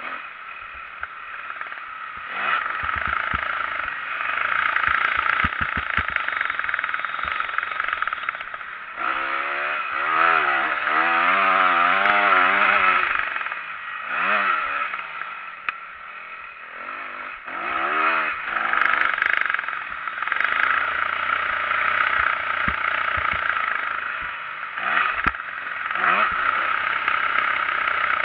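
Motocross motorcycle engine heard from an onboard camera while riding, its pitch rising and falling as the throttle opens and closes, strongest in the middle of the stretch. Sharp knocks and clatter come through as the bike hits bumps.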